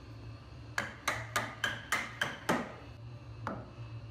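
A quick run of sharp wooden knocks, about three a second for under two seconds, then one more knock a second later.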